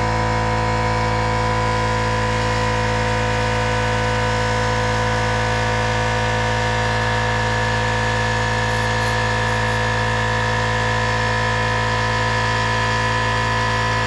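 Electric air compressor running at a steady pitch, a constant motor hum with a whine over it.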